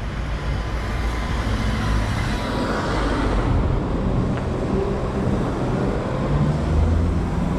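Road traffic: motor vehicles passing, one swelling and fading about three seconds in, with a low engine hum near the end.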